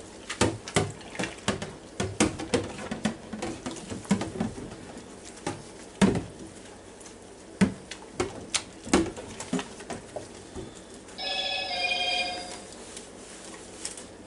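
Nonstick grill grate being scrubbed with a sponge in a stainless steel sink of soapy water, with irregular knocks and clatters of the grate against the sink. About eleven seconds in there is a brief warbling tone from an unseen source.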